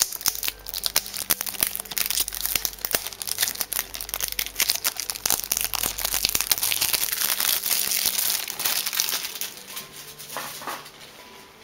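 Plastic shrink-wrap on a Blu-ray case crinkling and tearing as it is pulled off, a dense run of crackles that dies away near the end.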